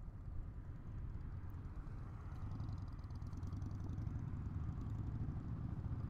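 Honda SCL500's parallel-twin engine running steadily under way, a low rumble with some wind and road noise over it.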